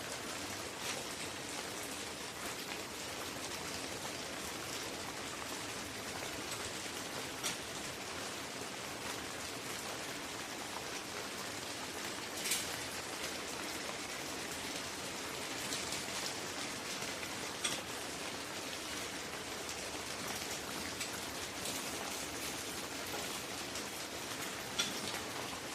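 Steady hiss of falling rain, broken by a few sharp clicks, the loudest about halfway through.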